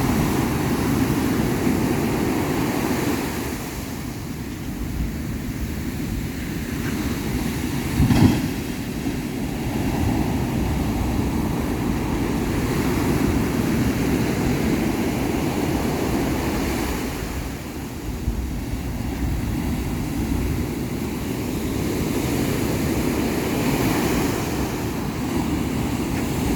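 Ocean surf breaking and washing ashore, swelling and easing every several seconds, with a heavy low rumble. One short thump about eight seconds in.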